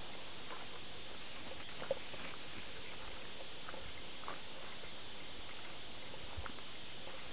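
Steady outdoor hiss with a few faint, irregular clicks and ticks; one sharper click about two seconds in.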